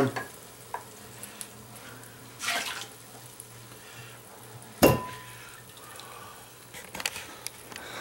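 A 1990 Caffeitaliano pod espresso machine running with a low steady hum that fades about five seconds in, with a short hiss about two and a half seconds in. A hard clatter of dishware or metal being set down, ringing briefly, comes about five seconds in, followed by a few light clicks.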